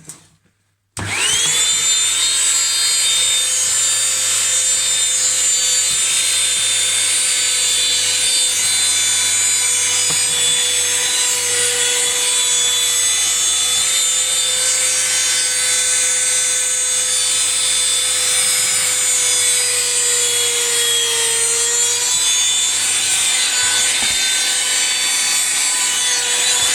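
Small vacuum cleaner switched on about a second in, its motor spinning up quickly to a steady high whine and running continuously. The pitch sags slightly for a moment about three quarters of the way through.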